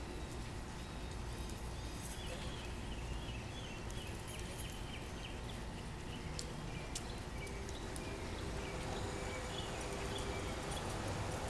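Scattered metal clanks and knocks from event-rental tent pipes being handled, over a steady low rumble.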